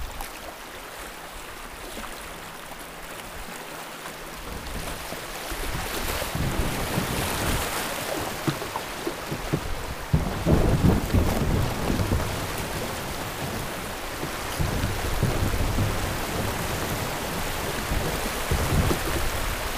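Moving river water around a kayak: a steady rushing hiss with irregular low rumbles that get louder about six seconds in.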